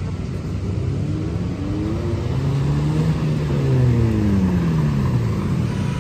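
Toyota Corolla sedan driving up and past, its engine note climbing in pitch and then falling away, loudest about two-thirds of the way through.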